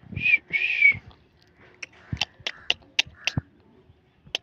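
A short high-pitched voice twice in the first second, then a run of sharp mouth clicks, about four a second, made while playing with a baby.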